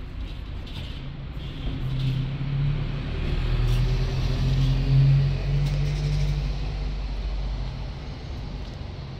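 A motor vehicle's engine running close by: a low hum that grows louder to a peak about five seconds in, then fades as the vehicle passes.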